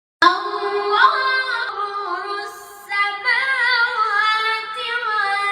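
A high voice reciting the Quran in a slow, melodic chant, holding long notes with wavering ornaments; it starts a moment in and pauses briefly for breath about halfway through before going on.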